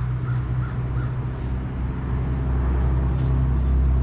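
A bird calling about five short times in quick succession in the first second and a half, over a steady low hum that is the loudest sound throughout.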